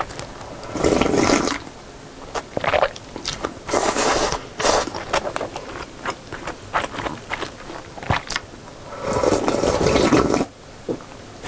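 Broth of a noodle soup being slurped straight from a large bowl, in two long slurps about a second in and again near the end, with chewing and wet mouth clicks between them.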